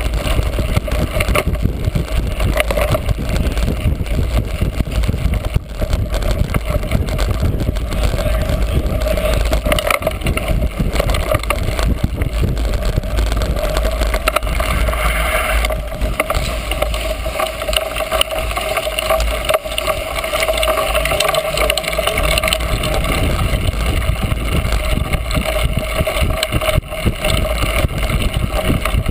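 Wind rushing over the microphone of a rider-mounted camera, mixed with the constant rattle of a cyclocross bike being raced over rough ground.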